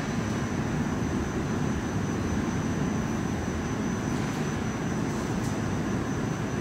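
Steady mechanical rumble of running plant machinery, with a faint steady high whine.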